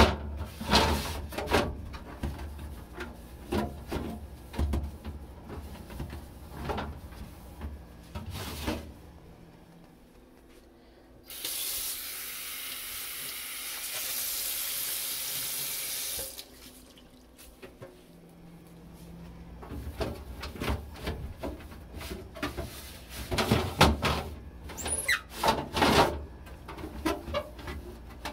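Kitchen faucet turned on, running water steadily into the sink for about five seconds, then shut off abruptly. Before and after it, knocks and clatter of items being handled and set down.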